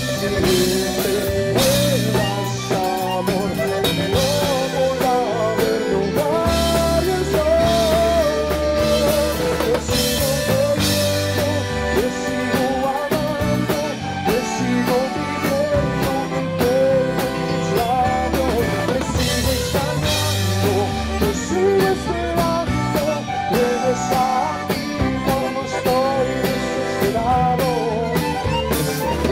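Tejano band music: an accordion melody over bass and a drum kit, playing steadily.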